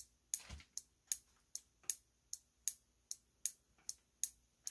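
The solenoid on a Federal Signal FA3 police alternating flasher board clicking steadily, a little under three clicks a second. Each click marks the switching of power between the two lamp outputs as its 555 timer oscillates.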